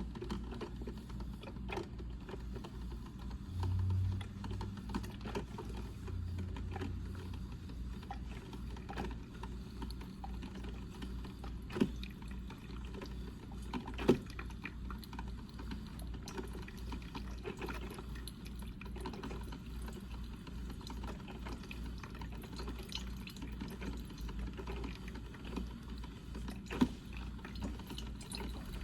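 Coffee percolator perking: water bubbling and gurgling in a steady low pulsing rhythm, with three sharp ticks along the way.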